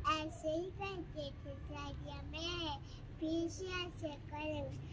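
A young girl singing in a high voice, in short phrases that glide up and down in pitch.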